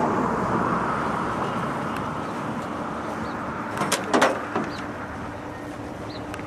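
Steady outdoor background noise that eases off slowly, with a few sharp knocks close together about four seconds in.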